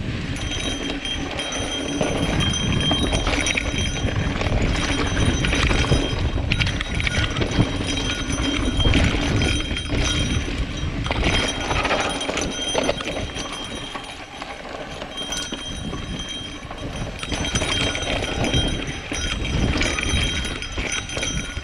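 Mountain bike riding down a rocky dirt trail: tyres crunching over dirt and stones while the bike rattles and clatters over bumps. There are many short knocks throughout, over a steady rumble.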